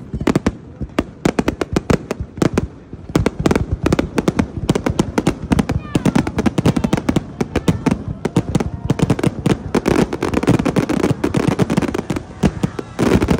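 Fireworks display in a rapid barrage: aerial shells launching and bursting in quick succession, with dense crackling and popping, many bangs a second.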